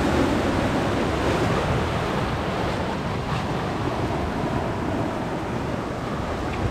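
Rough surf washing in over and around the rocks of a stony shore, a steady rushing sound.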